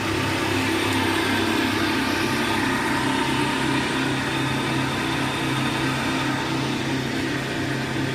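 Homemade round-stick (broom-handle) machine running steadily under its electric motor, a constant hum with no change in pitch.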